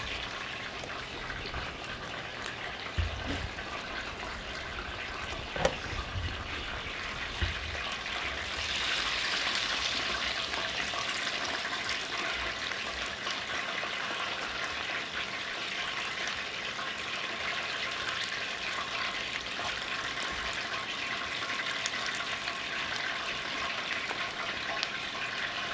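Chicken wings deep-frying in hot oil in cast-iron Dutch ovens: a steady sizzling hiss that swells for a few seconds about nine seconds in. A few light knocks come in the first eight seconds.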